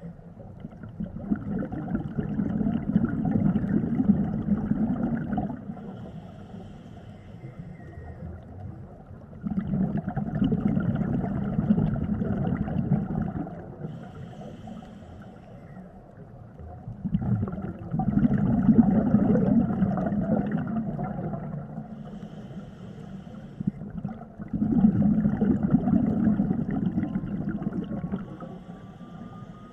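Scuba diver breathing through a regulator, heard underwater: four long exhalations of rumbling, gurgling bubbles, about every seven seconds, with a quieter hiss of the inhalation between them.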